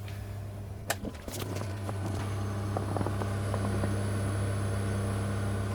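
DenisNetwork C40 portable compressor fridge running, its compressor and cooling fan giving a steady low hum that grows a little louder after a second and a half. Two sharp clicks come about a second in.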